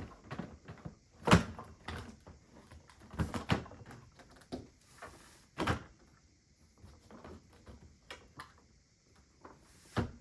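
Plastic parts of a portable air conditioner window vent kit being handled and fitted together: irregular clicks and sliding scrapes, with a few sharper knocks about a second in, around three and a half seconds in, and near six seconds.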